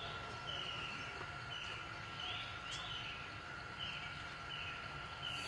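A bird calling a run of about seven short, falling notes, roughly one every three-quarters of a second, over a steady thin hum of forest background.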